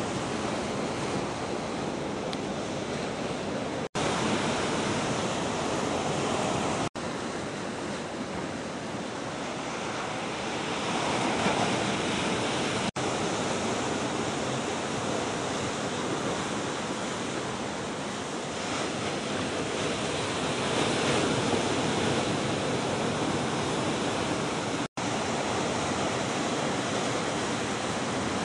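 Ocean surf: waves breaking and washing in, a steady rush that swells louder a couple of times as sets break. The sound drops out for an instant four times where the footage is cut.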